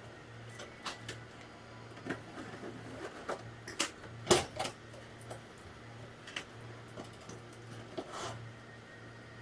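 Irregular light knocks and clicks, a dozen or so, the loudest about four and a half seconds in, over a faint steady low hum.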